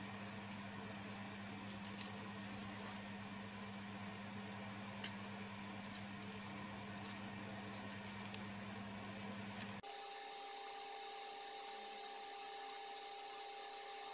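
Faint, scattered ticks and scratches of thin toaster filament wire being bent and wound around a notched mica card by hand, over a steady electrical hum. About ten seconds in, the hum switches abruptly to a higher steady tone.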